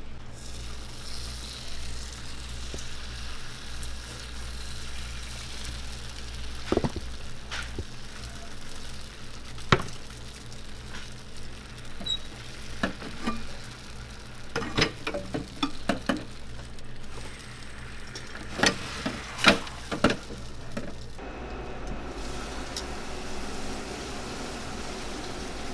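Batter sizzling in a hot Hong Kong egg waffle pan, with sharp metallic clanks and knocks from the middle on as the hinged pan is closed and turned on its stand.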